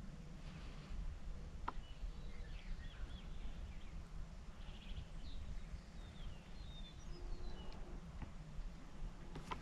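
Quiet early-morning field ambience: a steady low rumble with a few faint, brief songbird chirps, and a single faint click a little under two seconds in.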